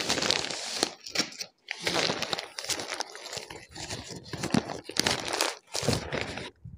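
Layers of gift wrapping being torn open and crumpled by hand, irregular rustling and tearing in quick bursts with a couple of short pauses.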